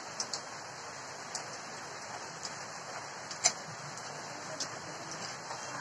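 Steady hiss of rain, with a handful of sharp clinks of metal spoons against plates; the loudest clink comes about three and a half seconds in.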